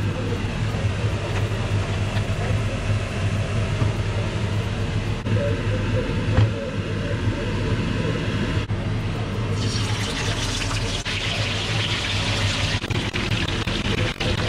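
Cooking oil poured into a wok, with a steady low hum underneath. About ten seconds in, hot oil starts sizzling as chicken wings fry in it.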